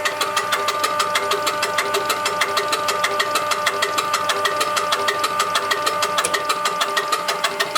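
UTN-4 diesel fuel injection pump running steadily under test after repair and adjustment: a steady mechanical hum with even, sharp ticks about six times a second.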